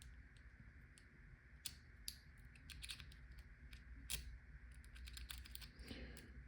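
Faint, irregular small clicks and scratches of a steel hook pick working the pins inside a Master Lock 140-series padlock's keyway, the tip catching on the pins as it goes.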